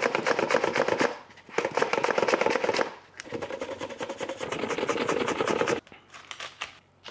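Green apple being sliced on a handheld mandoline over a stainless steel bowl: rapid back-and-forth strokes in three runs with short pauses. Near the end, a knife chopping green onions on a wooden cutting board, a few sparser cuts.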